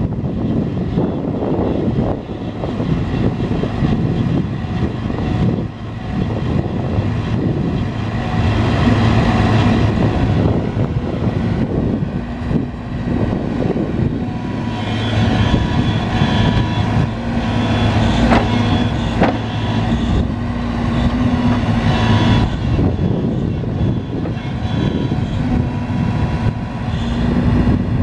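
Hyundai crawler excavator's diesel engine running hard under load, its hum steady in pitch and swelling in stretches as the boom and bucket pull the machine through deep mud. A couple of sharp knocks come about two thirds of the way through.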